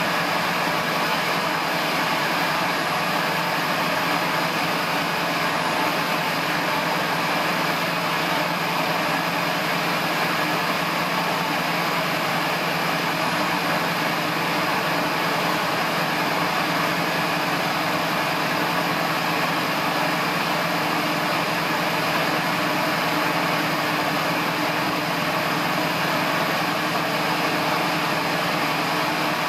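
Light aircraft's piston engine and propeller running in flight, heard from inside the cockpit as a steady drone with air noise, holding an even pitch throughout.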